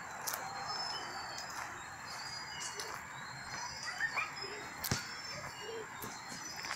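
Small birds chirping and twittering in the trees, many short high calls over a quiet outdoor background, with one sharp click about five seconds in.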